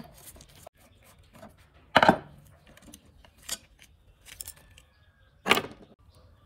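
Metal and plastic parts of an old electric planer knocking and clinking against each other and the wooden workbench as it is taken apart, with two louder clanks about two seconds in and near the end.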